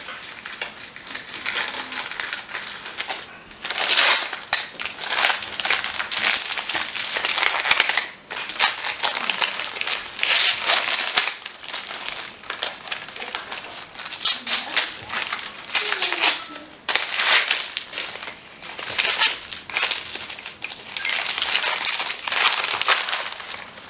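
Gift wrapping paper being torn and crumpled as a present is unwrapped, in irregular bursts of rustling and tearing with short pauses between.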